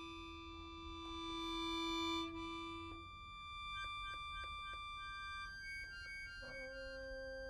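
Trumpet and accordion playing contemporary chamber music. Long held notes, a run of short clipped notes about four seconds in, and a new held note coming in near the end.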